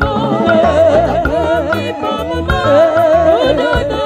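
Three women singing together into microphones, with wavering, vibrato-laden voices, over a live band with a bass line and drum kit, heard through the PA.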